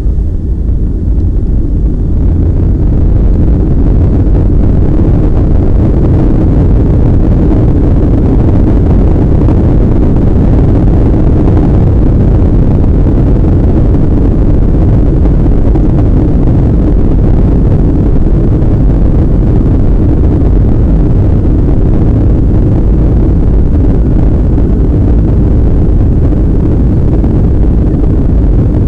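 Boeing 757 jet engines at takeoff power, heard inside the cabin over the wing during the takeoff roll: a loud, steady, deep rumble that builds over the first couple of seconds and then holds.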